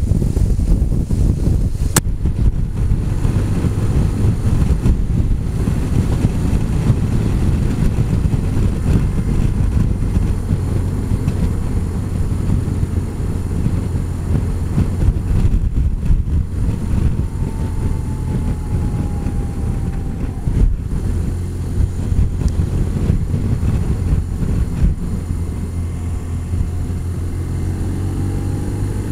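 Touring motorcycle riding at road speed: wind buffeting on the bike-mounted camera's microphone over a steady engine hum and tyre noise, with no gear changes or revving.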